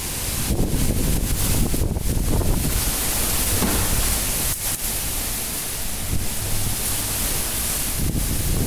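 Cyclone-force wind blowing in strong gusts, a loud, surging rush with a low rumble, with gusts near 100 km/h.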